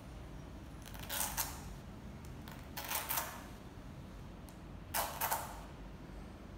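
A small child's sneaker being handled and pulled at as he works it onto his foot: three short scratchy noises, about two seconds apart.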